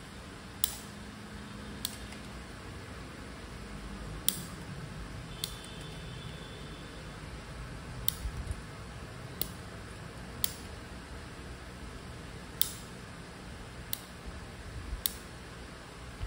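Kitchen scissors snipping boiled quail eggs in half: about ten sharp, short snips, spaced irregularly a second or two apart.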